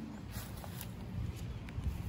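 Quiet background: a low rumble with a few soft ticks and taps, and no clear single source.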